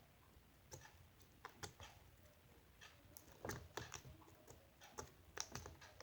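Faint, irregular clicks and taps, about a dozen scattered unevenly, with a few louder ones a little past the middle and near the end.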